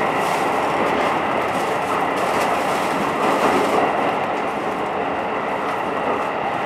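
Keikyu New 1000 series electric train running through a subway tunnel, heard from inside a passenger car: a steady rumble of wheels on rail.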